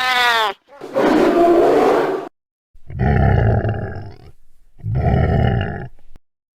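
Monster roar sound effects. A brief pitched cry comes first, then three rough roars of about a second and a half each with short breaks between. The last two are deep and growling.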